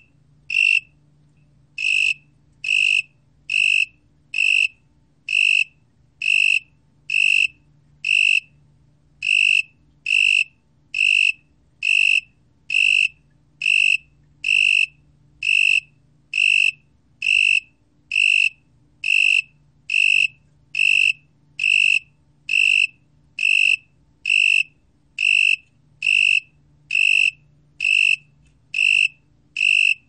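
Broad-winged tree cricket (Oecanthus euryelytra) singing at 22 °C: a steady series of clear, high-pitched chirps, each about half a second long, about one a second. There is a pause of about a second just after the start and a shorter one about eight seconds in.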